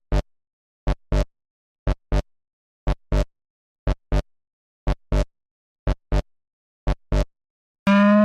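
Electronic alarm sound effect: a double beep, two short beeps about a fifth of a second apart, repeating once a second. Near the end a loud, steady alarm tone starts and glides slowly upward in pitch.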